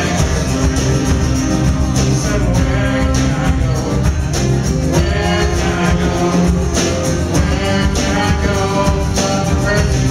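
Live worship band playing a song with acoustic and electric guitars, bass and hand percussion, with a steady beat.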